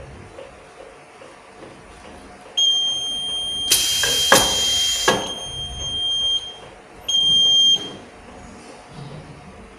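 A conveyor metal detector's alarm buzzer sounds a steady high-pitched tone for about four seconds, then again briefly about seven seconds in. The alarm signals a metal-contaminated soap bar being detected and rejected. About a second into the first alarm comes a loud hiss with knocks as the reject pusher kicks the bar off the belt.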